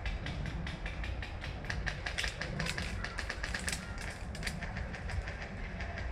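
Airsoft guns firing: a fast, irregular string of sharp clicks, several a second, thickest in the middle, over a low rumble.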